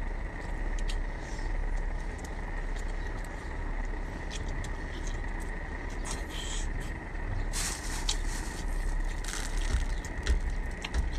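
Cooked lobster being pulled apart by hand and eaten: scattered small shell cracks and clicks with brief mouth and chewing noises, over a steady low background rumble with a faint high whine.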